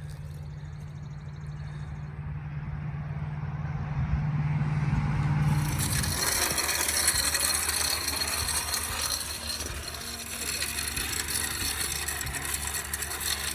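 Tractor engine running steadily. About six seconds in, a loud rattling, scraping mechanical noise takes over, typical of a box blade working the ground.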